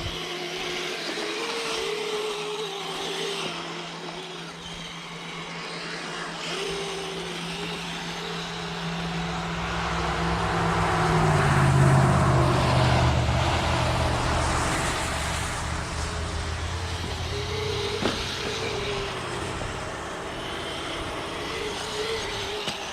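Brushless electric motors of a Kyosho Blizzard 2.0 RC snow vehicle whining, the pitch wavering up and down with the throttle. A louder low rumble swells up through the middle and fades again.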